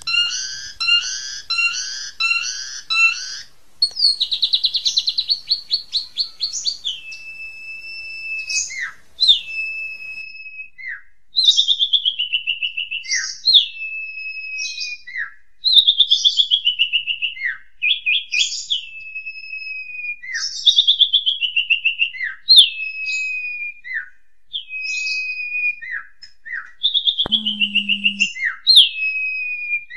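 A songbird singing loudly and clearly. It opens with a rapid run of repeated stacked notes, then a fast trill, then one phrase over and over about every two seconds: a stuttering whistle sliding down from high to lower pitch, followed by a few sharp downward-swept notes. Near the end there is a click and a brief low hum.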